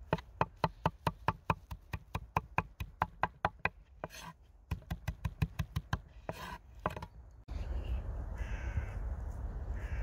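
Knife chopping on a cutting board: quick, even strokes about four or five a second, broken by a short pause and resumed. Near the end the chopping gives way to a steady outdoor background hiss.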